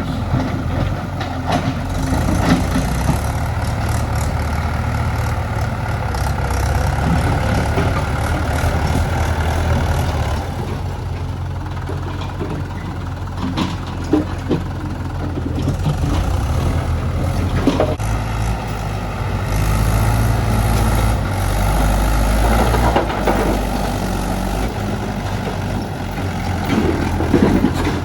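Diesel engine of heavy farm and earthmoving machinery running and working, its note rising and falling with load, with a few sharp knocks around the middle.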